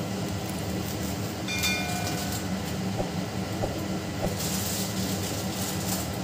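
Steady low rumbling kitchen noise, with masala frying in a kadhai over a lit gas burner. A brief high ringing tone comes about a second and a half in, and a few light clicks follow around the middle.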